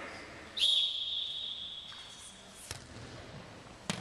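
A referee's whistle blown once, one shrill note held for about two seconds. Two sharp knocks follow near the end.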